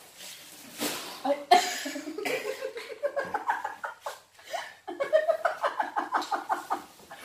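A woman laughing, with a long run of quick, repeated laughs from about five seconds in.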